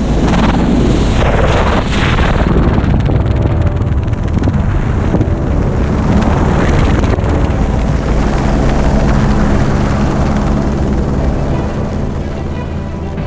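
Helicopter in flight heard through its open side door: steady rotor and engine noise with wind rushing over the microphone.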